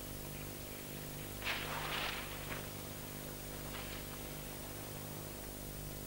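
A brief, faint rustle of brush and leaves about one and a half seconds in, and a fainter one later, over a steady low hum.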